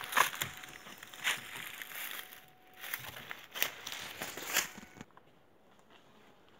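Crunching and rustling of footsteps through dry leaf litter and twigs, with leafy branches brushing the camera and knocks from handling it. The noise stops about five seconds in, when the camera is set down on the ground.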